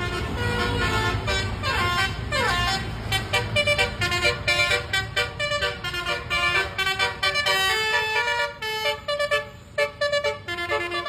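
Indonesian bus 'basuri' telolet horn, a multi-tone electric horn, playing a quick tune of short stepped notes, with a couple of falling swoops about two seconds in. A bus engine rumbles underneath, fading after the first few seconds.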